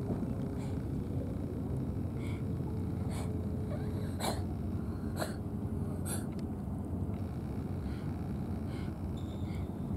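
Steady low outdoor rumble, with short sharp clicks scattered irregularly about once a second.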